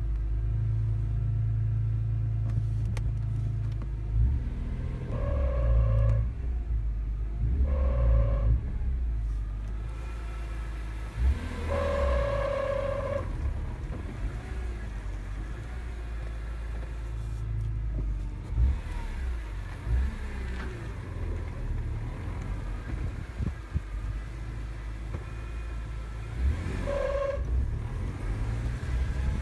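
BMW E46 M3's S54 straight-six idling steadily, with a higher-pitched tone that comes in briefly four times, the longest for about a second and a half. The owner calls it a clutch noise he can't identify, on a car with a six-speed manual swap, an E34 M5 clutch and a UUC lightweight flywheel.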